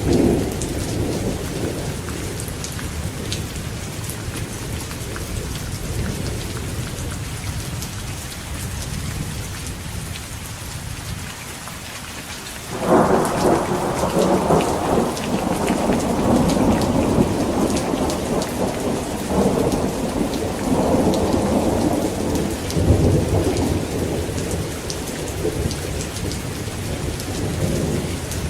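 Steady heavy rain with a low thunder rumble fading away. About halfway through, a sudden loud thunderclap breaks and rolls on in waves of rumble over the rain.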